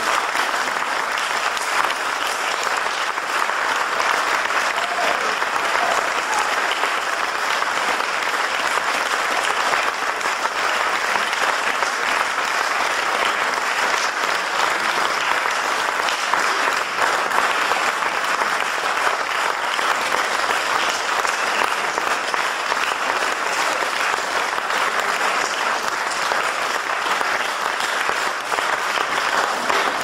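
Audience applauding steadily after a jazz tentet performance.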